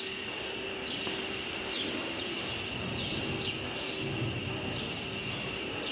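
Dairy barn ambience: a steady mechanical drone with a constant high whine, and short high chirps about once a second.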